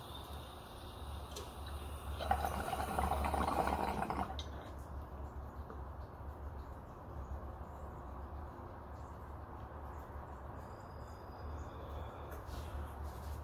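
Water bubbling in a glass recycler bong as smoke is drawn through it, for about two seconds, ending with a light click. A low steady hum remains afterwards.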